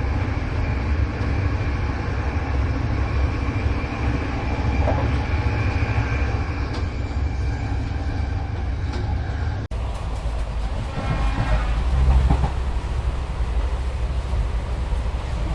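Ambience inside a moving train carriage: a steady low rumble of the train running on the rails. About two-thirds of the way through it cuts abruptly to a different train-interior recording with a deeper rumble.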